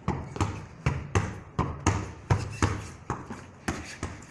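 Soccer ball kicked with the instep against a wall and back, kept up without touching the ground: a quick run of sharp ball thuds, about three a second.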